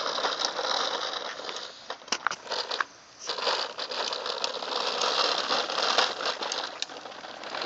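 Hard plastic wheels of a toddler's push walker rolling and rattling over a concrete sidewalk, with a short pause around two seconds in marked by a few clicks, then rolling on.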